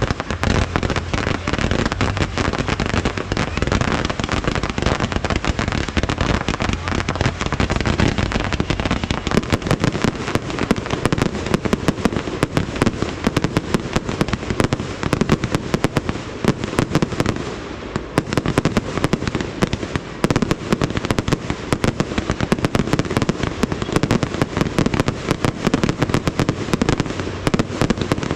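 Fireworks display: a dense, continuous barrage of bangs and crackle, many reports a second, with a brief lull about 18 seconds in.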